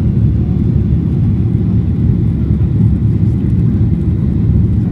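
Airliner cabin noise during the climb after takeoff: a steady low rumble of jet engines and rushing air heard inside the cabin.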